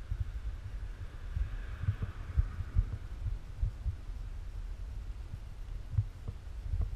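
Wind buffeting a GoPro's microphone: a low rumble with irregular thumps. A faint hiss of a car passing on the road swells and fades about one to three seconds in.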